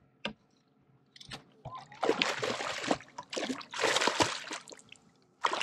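Water splashing in two main bursts, with a few small clicks before, as a landed rainbow trout thrashes at the boat.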